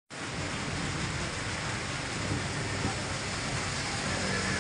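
Steady rain falling on a wet street, a constant hiss. Near the end a motorcycle engine passes on the wet road.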